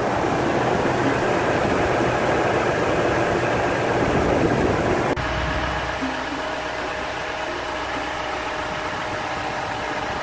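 Toyota Tundra engine idling steadily, heard first with the hood open and then, a little quieter, from under the truck about five seconds in.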